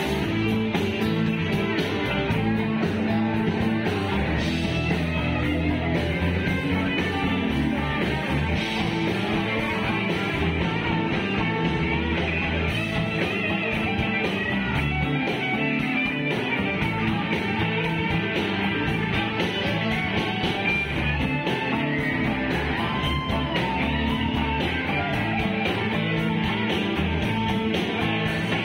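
Live rock band playing at a steady loudness, with electric guitars over bass and drums.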